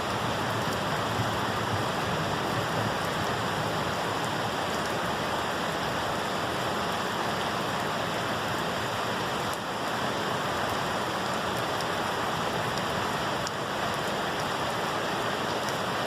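Steady rain falling: an even hiss with scattered drops ticking through it.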